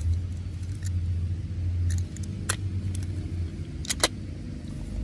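Hard plastic toy pieces clicking and knocking together as a toy tiger is put together, with a close pair of sharp snaps about four seconds in, over a steady low hum.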